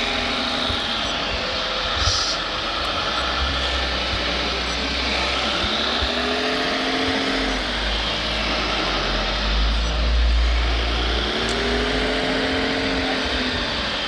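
Small electric motors and hydraulic pumps of RC construction models whining, the pitch swelling up and falling back several times as the machines work, over a steady low rumble.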